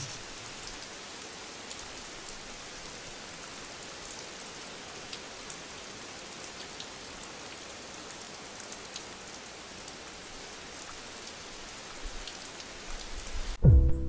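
Steady rain falling, with scattered drops ticking. Music comes in near the end.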